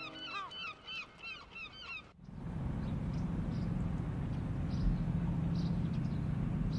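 A flock of birds calling rapidly, about three calls a second, which stops abruptly about two seconds in. A vintage car's engine then runs steadily as the car drives along a road.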